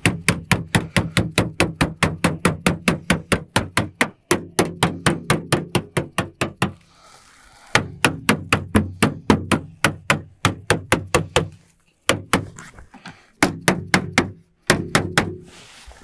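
Roofer's mallet tapping rapidly on folded sheet metal, about five blows a second. It is closing one small standing-seam fold of a chimney flashing piece onto the next. The blows come in runs, with a pause of about a second midway and a few short breaks near the end.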